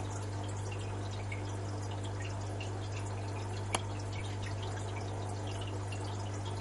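Water dripping and trickling in a crab terrarium's water basin, many small irregular drops over a steady low hum, with one sharp click a little past halfway.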